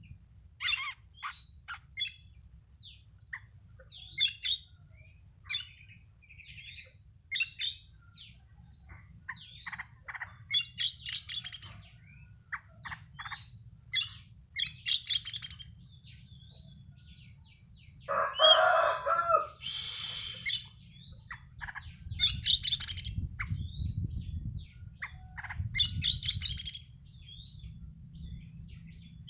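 Songbird calling in short, sharp bursts of chirps and quick notes, repeated every second or two, with a lower, fuller call about two thirds of the way through; a bird in breeding condition. A steady low hum runs underneath.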